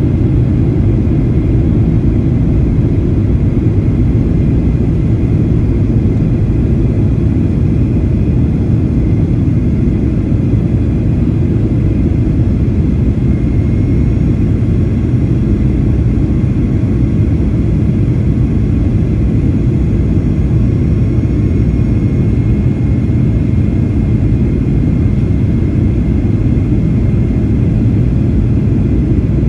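Steady cabin noise of a Boeing 737-800 in flight, heard from a seat beside the wing and its CFM56-7B turbofan: a constant low rumble of engine and airflow with a faint high whine.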